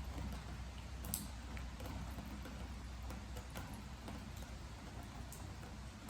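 Steady rain, with scattered drips ticking onto a wooden deck; one sharper drip lands about a second in.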